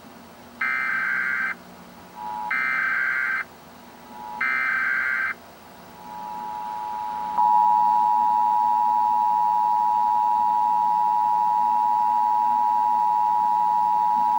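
Emergency Alert System broadcast alert: three roughly one-second bursts of screeching digital SAME header data, then the steady two-tone EAS attention signal about seven seconds in, a loud held dual tone.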